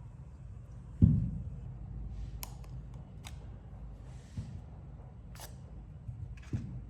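Handling noises from a vape kit and its packaging: a heavy thump about a second in, then several sharp light clicks and a couple of soft knocks over a steady low hum.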